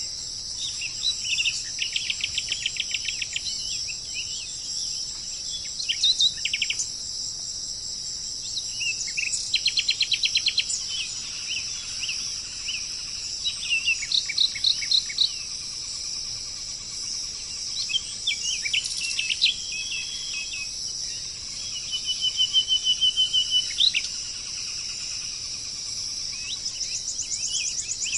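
Birds calling in short phrases of rapid repeated notes every few seconds, over a steady high-pitched drone of insects.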